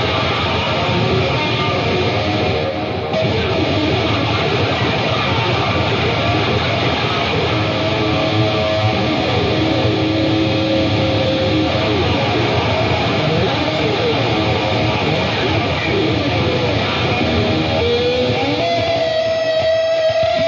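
Electric guitar solo in a live heavy metal performance: a dense run of lead lines, then near the end a note slides up and is held.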